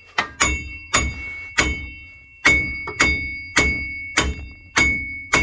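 Steady series of hammer blows on steel, about ten strikes roughly every half second, each with a metallic ring: the rusted front wheel bearing hub of a Ford F-150 being knocked out of the steering knuckle.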